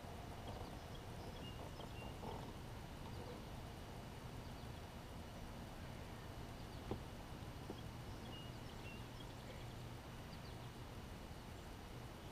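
Faint outdoor ambience on calm water: a steady low rumble with a few short, high chirps from distant birds, and a single sharp knock about seven seconds in.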